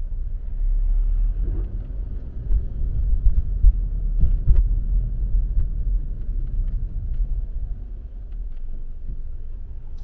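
Low, steady rumble of a car's engine and tyres heard from inside the cabin while driving slowly in city traffic, with a few faint ticks and knocks.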